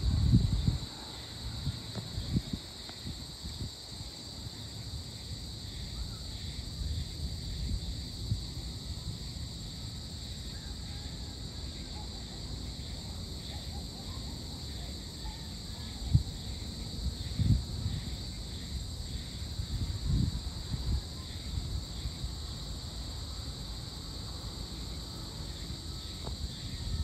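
A steady, high-pitched chorus of insects at dusk. Gusts of wind rumble on the microphone now and then, strongest at the very start and again around the middle.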